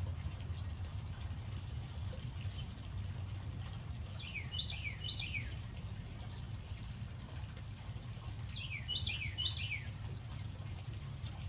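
A songbird sings two short phrases, about four seconds in and again about four seconds later. Each phrase is three quick whistled notes sliding downward. A steady low hum runs underneath.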